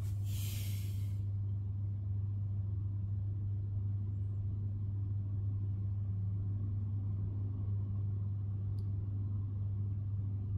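A steady low hum with an even level throughout, a short hiss in the first second and a faint tick near the end.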